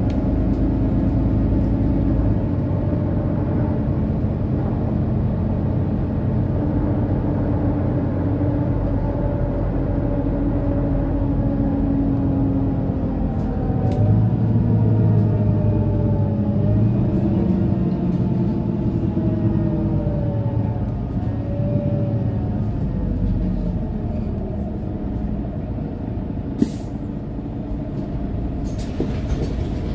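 Mercedes-Benz O530 Citaro city bus running under way, its engine and drivetrain heard from the passenger cabin, with the engine pitch rising and falling several times in the middle as it changes speed. Near the end there is a sharp click, then a short burst of air hiss.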